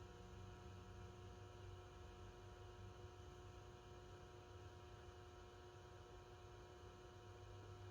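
Near silence: a faint steady electrical hum of room tone, with no distinct event.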